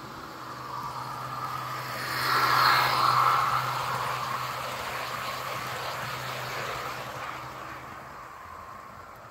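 HO-scale model train, an EMD GT26CW diesel locomotive hauling passenger coaches, running past on the track with a steady low hum. It grows louder to a peak about three seconds in, then fades as the train moves away.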